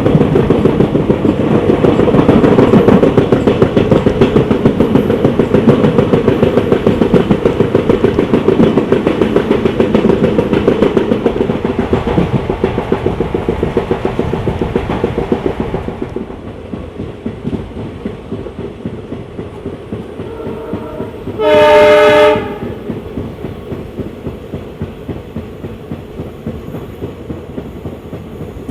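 Passenger train running on the rails with a steady rhythmic clatter of wheels over the track, quieter after about halfway. About two-thirds in the locomotive horn sounds: a short toot, then a blast of about a second.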